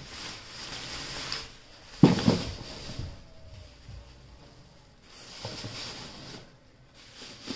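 Thin black plastic bags rustling and crinkling as hands move them about in a cardboard box, with one sudden thump about two seconds in.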